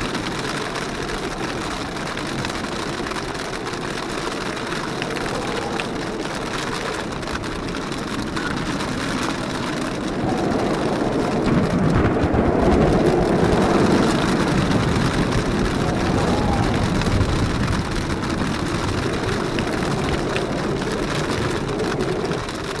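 Storm wind and rain rushing over a hood-mounted camera on a Jeep Wrangler as it drives, with the Jeep's running noise underneath. The rush swells louder from about ten seconds in and eases back a few seconds before the end.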